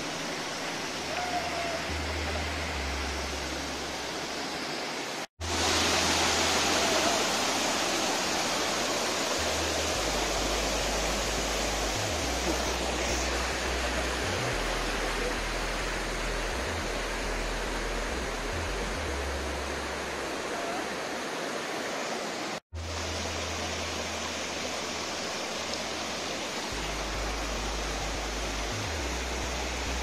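Rain-swollen forest waterfall and cascade rushing steadily over rock ledges into a pool. The sound drops out for an instant twice, about five seconds in and again about two-thirds of the way through, and is louder after the first break.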